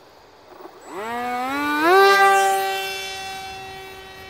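Brushless outrunner motor (Turnigy Aerodrive D2826-10, 1400 kV) spinning a 7.5-inch propeller on a foam-board RC plane, throttled up for a hand launch. It is a whine that rises in pitch in two steps about a second in and is loudest near two seconds. It then holds a steady pitch and fades as the plane flies off.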